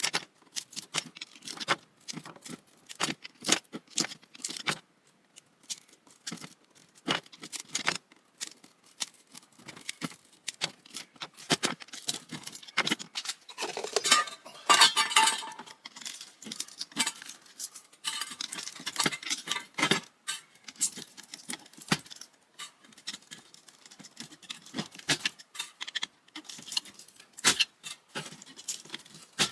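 Pliers clicking and small metal parts rattling while copper windings are pulled out of a ceiling fan motor. Short, irregular clicks throughout, with a longer stretch of scraping and tearing about halfway through.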